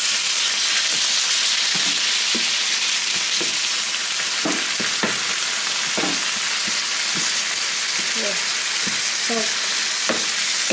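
Ground beef and garlic sizzling in hot oil in a frying pan, a steady hiss, with a utensil knocking and scraping against the pan now and then as it is stirred.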